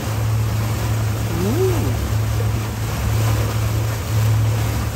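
Motorboat engine running steadily as a low drone, with water and wind noise around it. A brief voice sound is heard about a second and a half in.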